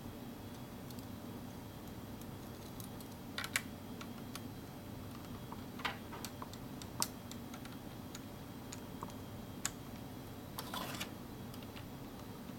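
LEGO plastic pieces being handled and pressed together: a scattered series of short, sharp plastic clicks and snaps at irregular intervals, over a faint steady low hum.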